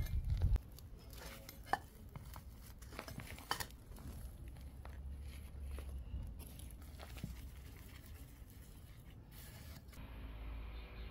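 Small hand trowel digging and scraping potting soil in a terracotta pot, with a few sharp clicks of the metal blade against the clay, most distinct about two seconds and three and a half seconds in. A brief low thudding opens it.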